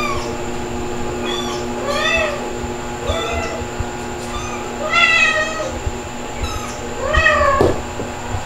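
Cat meowing repeatedly: about six separate meows, each rising then falling in pitch, a second or so apart, the loudest about five and seven seconds in.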